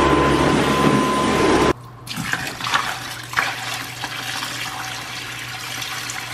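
A cordless Dyson stick vacuum runs steadily with a high whine, then stops abruptly a little under two seconds in. After that, water runs from a faucet into a sink basin, splashing down the drain.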